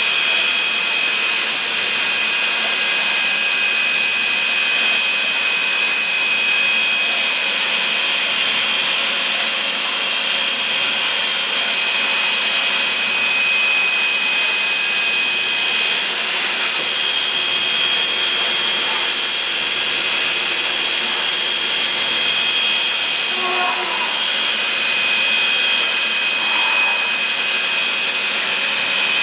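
A steady high-pitched mechanical whine, several pitches held together over a hiss, with no knocks or changes in speed.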